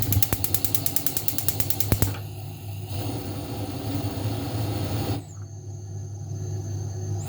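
Gas stove spark igniter clicking rapidly, about ten clicks a second, stopping about two seconds in. A steady rushing noise over a low hum follows, and it changes about five seconds in.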